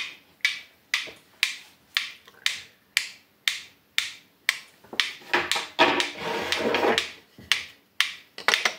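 Wittner Taktell Piccolino mechanical wind-up pendulum metronome ticking steadily, about two sharp ticks a second. From about five to seven seconds in, a rustle of handling rises over the ticking.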